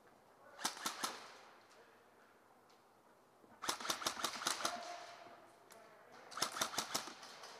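Airsoft guns firing in quick bursts of sharp cracks: a short burst of about three shots half a second in, a longer string of about ten around three and a half seconds, and another of about six near the end, each with a short echo.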